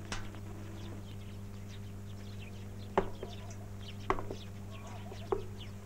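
Small birds chirping faintly, with three sharper short sounds about a second apart, over a steady low hum in the old soundtrack.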